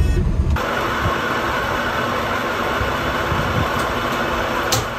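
Metal lathe running steadily as a boring tool cuts into a spinning workpiece, an even whirring hiss with a few light ticks near the end. It is preceded by about half a second of car cabin road noise.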